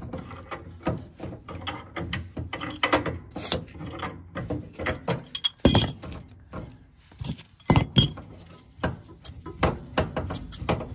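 Metal clinks and clicks of a pipe wrench being fitted, re-gripped and turned on a furnace gas valve's pipe fitting: an irregular run of sharp knocks.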